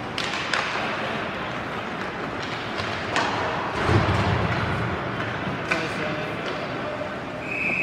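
Ice hockey rink from the stands: sharp clacks of sticks and puck over a murmur of spectators' voices, with a low thud about four seconds in. Near the end a referee's whistle sounds one steady high note, blown to stop play.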